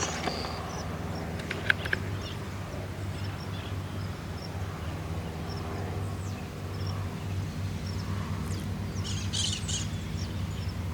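Steady, distant drone of a Cessna 152's four-cylinder piston engine and propeller, with birds chirping over it and a burst of chirps about nine seconds in.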